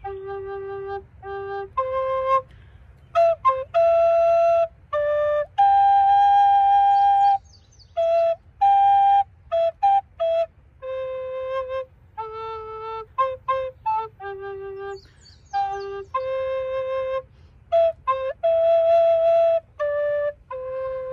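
Plastic soprano recorder playing a slow melody: a string of separate held notes with short breaks between them and longer pauses between phrases.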